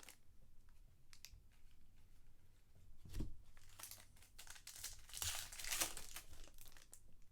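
Trading card pack wrappers crinkling and tearing open, with a dull knock about three seconds in and a louder stretch of crinkling about five to six seconds in.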